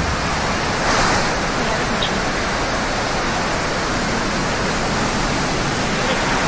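Blue Origin New Shepard's BE-3 rocket engine firing at liftoff, a loud, steady rushing noise that swells slightly about a second in.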